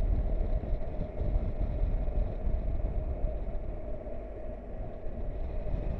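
Triumph Tiger 1200 XRT's three-cylinder engine running at a steady road speed, with low wind rumble on the microphone from riding.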